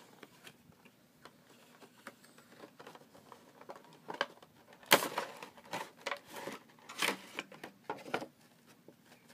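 Cardboard Funko Pop box being opened by hand and its clear plastic tray slid out: irregular clicks, crackles and rustles of cardboard and plastic, loudest about five and seven seconds in.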